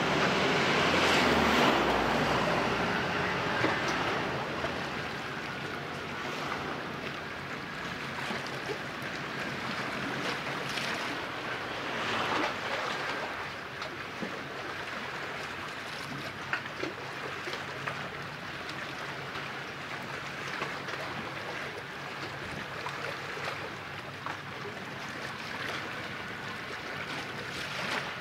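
Steady wash of wind and small sea waves, louder for the first couple of seconds, with a faint low hum that fades out about three seconds in.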